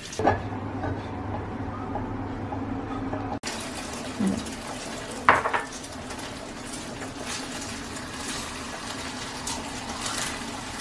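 Beaten egg sizzling in oil in a frying pan on a gas stove, an even hiss, with a sharp utensil clink a little past five seconds in. It is preceded by a steady low hum that cuts off abruptly about three seconds in.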